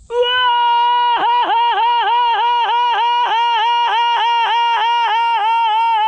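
A man's loud, long, high held call at a steady pitch, warbled from about a second in by quick regular dips about three times a second, like a yodel.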